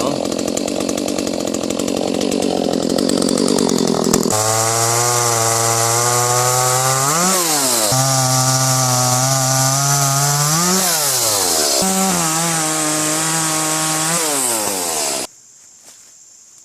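Echo CS-310 30.5 cc two-stroke chainsaw running. For about the first four seconds it sounds dense and strained, as if under load in the wood. After that it runs with a clear steady engine note, revs up briefly and drops back twice, settles at a higher pitch, and cuts off suddenly near the end.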